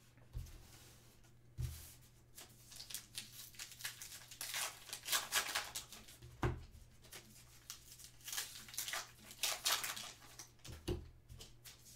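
The paper wrapper of a trading-card pack being torn open and crinkled by hand in quick bursts of rustling, with a few dull bumps against the table, the loudest about halfway through.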